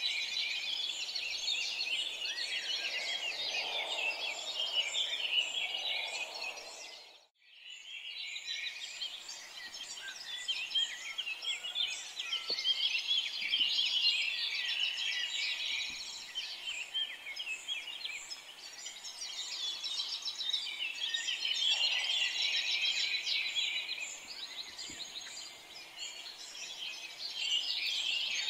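Many birds chirping and singing at once in a dense, continuous chorus. The sound briefly drops out about seven seconds in and fades back up.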